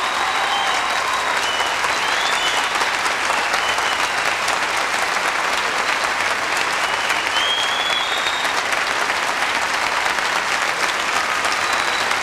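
A large audience applauding, with dense, steady clapping throughout.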